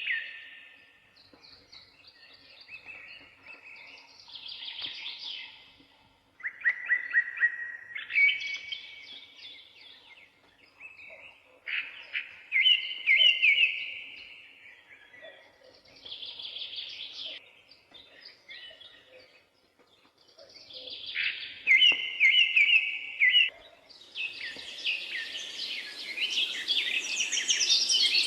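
Forest songbirds singing, phrase after phrase of repeated chirps and trills, each a second or two long, with short pauses between. About 24 seconds in, a steady rush of river water fades in under the birdsong.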